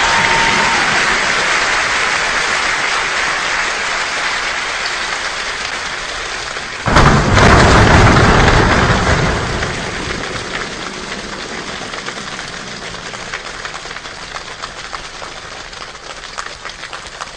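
Steady heavy rain falling, with a sudden loud thunderclap about seven seconds in that rumbles on for a couple of seconds. Afterwards the rain slowly grows quieter, with separate drops heard more distinctly near the end.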